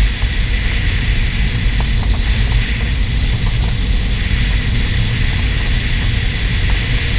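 Porsche 968's 3.0-litre four-cylinder car on the move, its engine and tyre noise under heavy wind rumble on the microphone, steady throughout.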